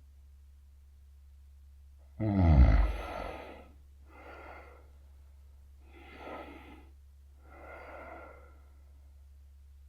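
A man snoring heavily: one loud, rattling snore about two seconds in, its pitch falling, followed by three quieter breaths.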